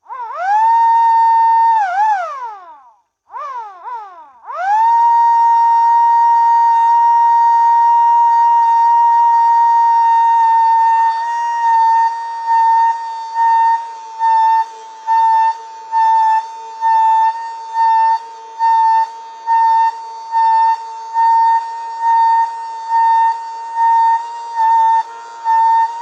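Modified MS-190 siren winding up to a steady high tone, dropping away after about two seconds and restarted in a few short stutters before it holds its tone. After about ten seconds it goes into its pulse setting, swelling louder about once a second over the steady tone.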